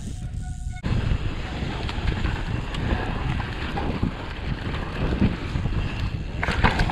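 Mountain bike riding packed snow, heard from a handlebar-mounted camera. Wind buffets the microphone over a steady low rumble of tyres and bike on the snow. This cuts in just under a second in, after a quieter stretch with a faint steady tone.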